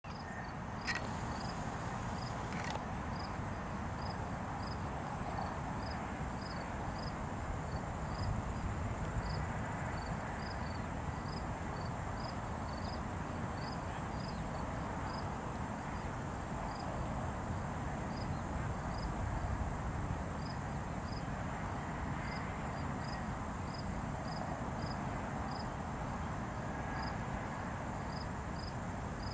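A cricket chirping steadily in short, evenly spaced high chirps about twice a second, over a steady low background rumble and a faint continuous high whine.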